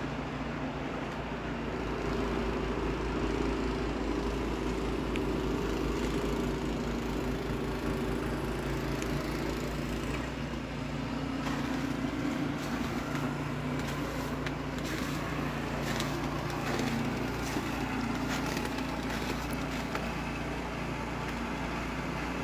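A steady low mechanical hum over a constant hiss, like a running vehicle engine, with scattered faint clicks in the second half.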